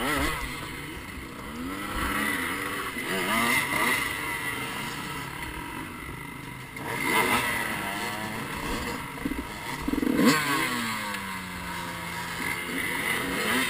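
Off-road dirt bike engines revving up and down on a steep rocky hill climb, the revs rising and falling constantly as throttle is worked and wheels lose grip. The loudest rev comes about ten seconds in and falls away slowly.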